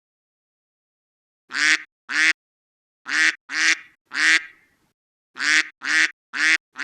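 Duck quacking sound effect: about nine short quacks in three bursts of two, three and four, with dead silence between the bursts.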